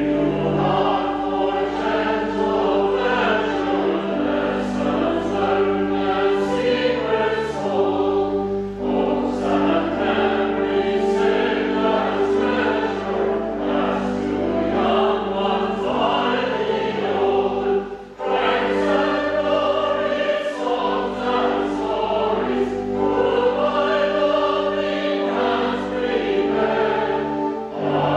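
A church choir singing a hymn with instrumental accompaniment, held low notes beneath the voices. There are brief breaks between phrases, about 8 and 18 seconds in.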